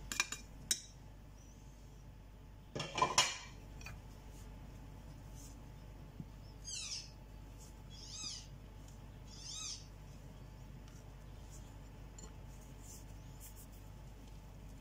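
Flour tipped from a plate into a glass mixing bowl makes a brief rush and knock about three seconds in, over a low steady hum. A few seconds later come three short high-pitched squeaks, each rising then falling, about a second and a half apart.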